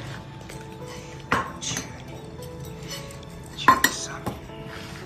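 Dishes and utensils clinking and clattering several times as cat food is served, the loudest clatter a little past the middle. Background music plays faintly underneath.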